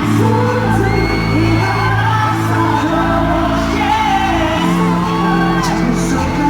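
Live K-pop concert music over an arena sound system, with singing and fans screaming and whooping, heard from within the audience with a large hall's echo.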